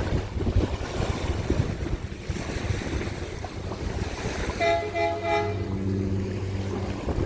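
Wind buffeting the microphone over the wash of surf. About two-thirds of the way in, a low pitched hum comes in for a couple of seconds, with a short, higher, warbling horn-like tone over its start.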